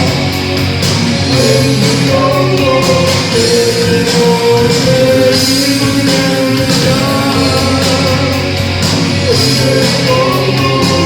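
A band playing a song live, loud and dense, with a singer holding long notes over the instruments.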